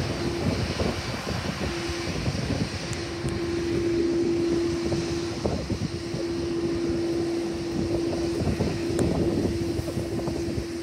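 Twin-engine jet airliner taxiing at idle, its engines giving a steady hum, with gusty wind buffeting the microphone.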